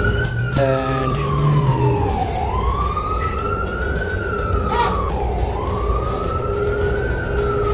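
Emergency vehicle siren wailing, its pitch slowly rising and falling about every two to three seconds.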